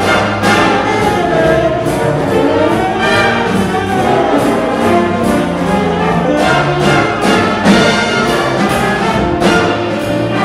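Jazz big band playing a swing number: a saxophone soloing at the front over piano, drums and the brass section, with the drums keeping a steady beat of about two strokes a second.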